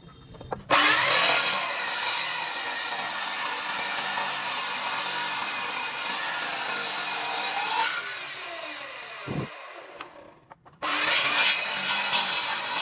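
A power tool grinding or sanding a surface. It starts abruptly about a second in, runs evenly for about seven seconds, then fades away, and starts again near the end.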